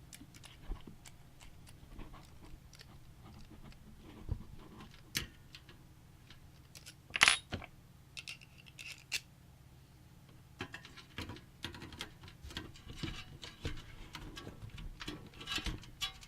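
Scattered small clicks, taps and light rattles of computer parts being handled and fitted into a PC case, with one sharper click about seven seconds in.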